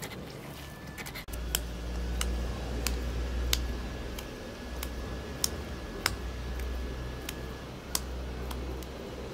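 Irregular dry crackles and sharp ticks of dried herbs being crumbled between the fingers, over a steady low rumble.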